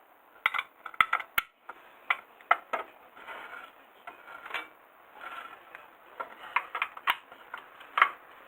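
Metal hand tools and parts clinking and clanking in an irregular string of sharp knocks, with short rattling scrapes in between.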